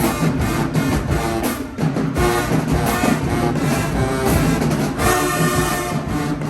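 High school marching band playing: brass section (trombones, trumpets) over drumline beats, with a long held brass chord about five seconds in.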